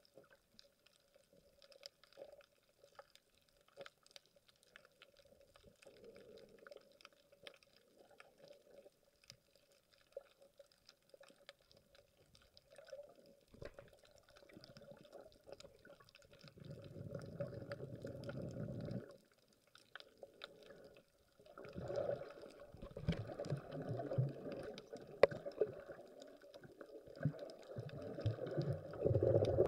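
Water heard underwater through an action camera's waterproof housing. Faint scattered clicks give way, about halfway through, to louder muffled sloshing and churning water in long surges.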